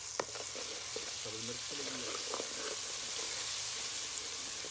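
Onion-tomato masala frying in hot oil in a karahi, sizzling steadily, with a steel ladle stirring through it. One sharp metal clink of the ladle comes about a quarter second in, and the sizzle grows a little louder just after.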